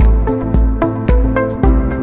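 Background music with a steady beat: bass thumps about twice a second, a crisp percussive rhythm and pitched instrumental notes.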